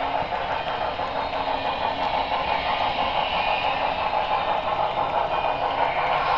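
Steady mechanical running noise of an HO-scale model steam locomotive, heard up close from the model itself: the hum and rattle of its motor, gearing and wheels on the rails.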